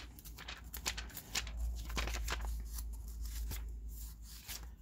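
Thin pages of a Liturgy of the Hours book being leafed through quickly by hand: a rapid run of papery flicks and rustles as the pages turn.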